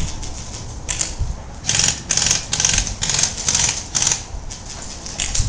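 Airsoft guns firing in rapid clicking bursts, thickest from about two to four seconds in.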